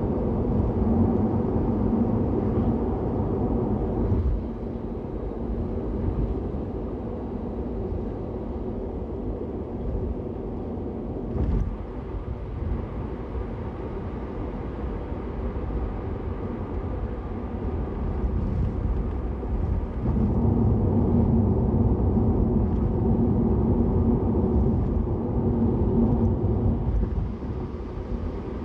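Steady low road and engine rumble heard inside a car cruising on an expressway, louder in the first few seconds and again from about two-thirds of the way through. A brief thump about eleven seconds in.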